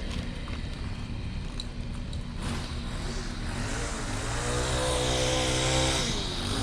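Two-stroke string trimmer (weed whacker) engine revving: the pitch climbs about three seconds in, holds at full throttle, then drops back as the throttle is released near the end.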